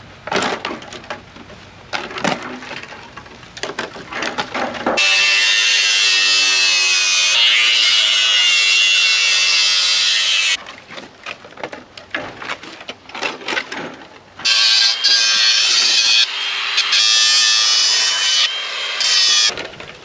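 Handheld grinder with a cut-off wheel cutting through the rusted sheet steel of a mower grass-catcher basket: a loud, steady, high whine with a grinding hiss. It runs in one long cut from about a quarter of the way in to about halfway, then in several shorter cuts near the end. Metal clanks and knocks come in the pauses and at the start.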